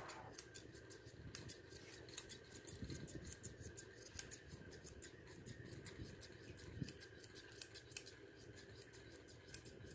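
Straight grooming shears snipping through a standard poodle's dense curly coat, a steady run of quick crisp cuts, several a second.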